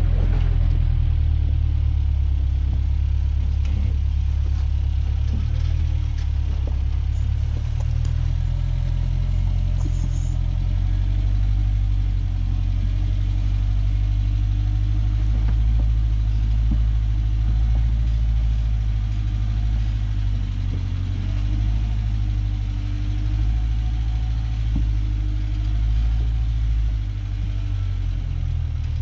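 Off-road vehicle's engine running at low revs during slow rock crawling, a steady low rumble with a few faint clicks.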